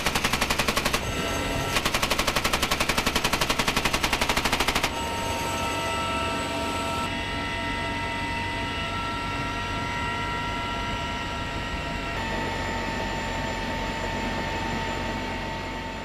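A machine gun fires two long rapid bursts, with a short break about a second in, and stops about five seconds in. After that comes the steady whine of a CH-53E Super Stallion's turbine engines.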